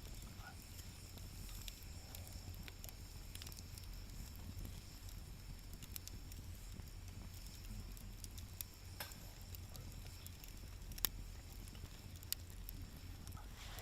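Wood fire burning in a camp fire stand, crackling faintly with scattered sharp pops. The loudest pop comes about eleven seconds in and another just after twelve.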